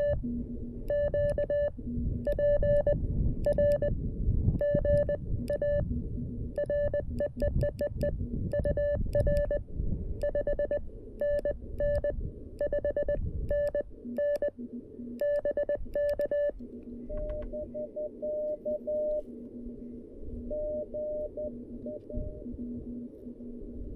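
Morse code (CW) sidetone from a CFT-1 QRP transceiver, a steady beep keyed on and off in dots and dashes as the operator sends with a 3D-printed paddle key. From about 17 seconds in, the tone turns fainter and is heard over a low hiss of band noise.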